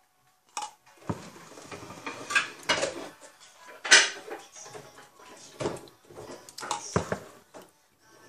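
Spoon clinking and scraping in a plastic cup of slushy: a series of irregular sharp clicks and knocks with scraping between them, the loudest about four seconds in.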